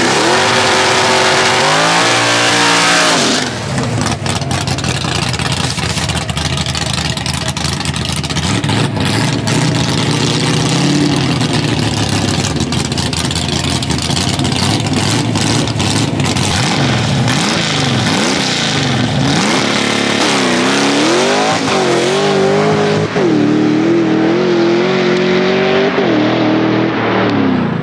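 Small-block Ford V8 drag car running on nitrous, revving and accelerating hard. The engine pitch climbs, then drops sharply about three and a half seconds in, with further rises and falls near the end.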